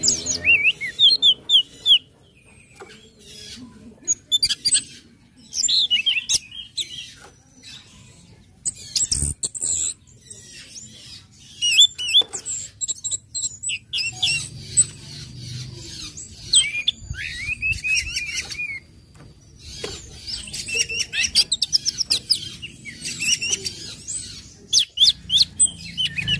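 Orange-headed thrush (anis merah) singing: bursts of quick, high chirping and trilling notes in short phrases, separated by brief pauses.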